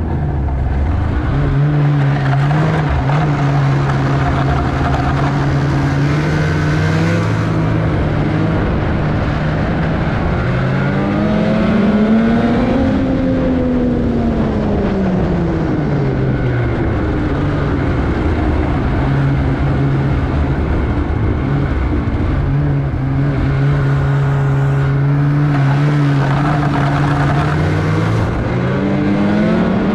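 Polaris Indy XC 850 snowmobile's two-stroke twin engine running under way on the trail at a steady pitch. A little over a third of the way in it speeds up to a higher pitch and falls back, then holds steady again and climbs once more near the end.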